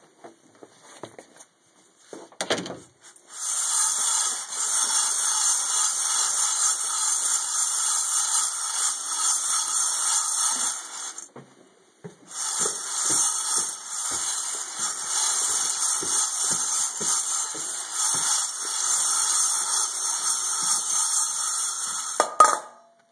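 Freshly roasted coffee beans swirled around in a stainless steel bowl, a continuous rattling hiss that swells and falls with each swirl, pausing for a moment about halfway, and ending with a knock of the bowl near the end. A single thump comes shortly before the rattling starts.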